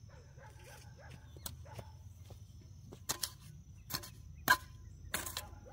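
Irregular sharp chopping strikes of a hand tool clearing ground, about eight blows coming faster in the second half.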